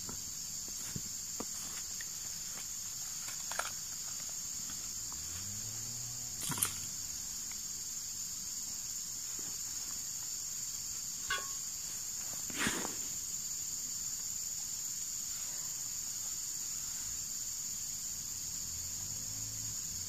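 Steady, high-pitched drone of insects, with a few brief knocks and clicks on top, the loudest about six and a half seconds in and about twelve and a half seconds in.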